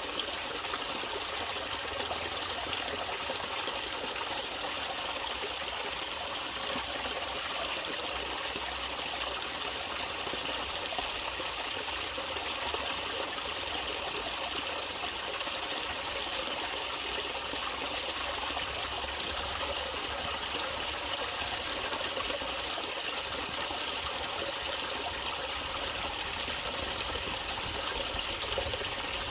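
Natural running water, a stream trickling and flowing steadily with no change.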